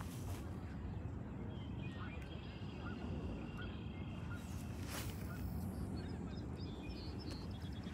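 Steady low outdoor rumble with faint, thin bird calls from across the water, a few around two to three seconds in and more near the end. A single swish about five seconds in as a spinning rod is cast.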